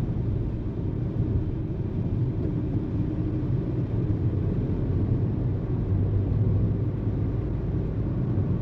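A car moving steadily along a road, heard from inside: an even low rumble of engine and tyre noise with no sudden events.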